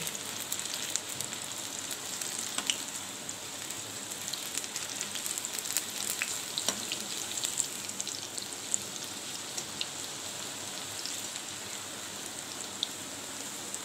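Gram-flour-battered jackfruit pakoras deep-frying in hot oil: a steady sizzle with frequent small crackles and pops.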